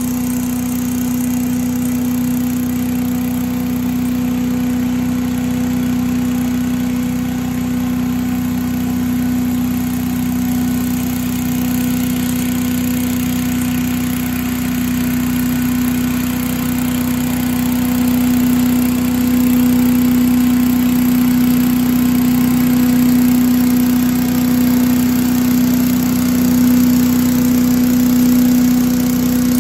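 An 8-horsepower Little Wonder leaf blower mounted on a compact tractor's three-point hitch running steadily at speed, together with the tractor's engine, with a strong steady hum. It grows a little louder in the second half as the tractor comes closer.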